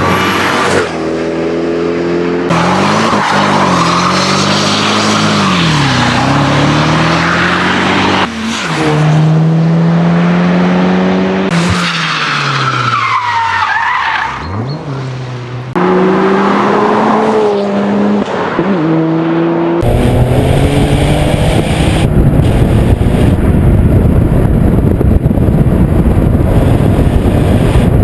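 A run of short clips of performance car engines, cut one after another. The engines rev up and down and pull hard through the gears. A tyre squeal comes near the middle, and a rough, loud exhaust noise fills the last third.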